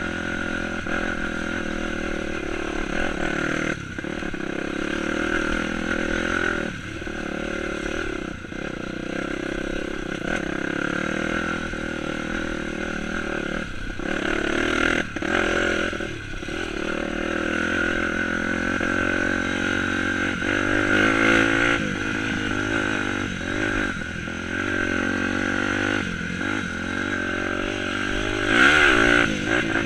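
Dirt bike engine running along a trail, its pitch rising and falling with throttle and gear changes and cutting back briefly several times. It revs up louder near the end.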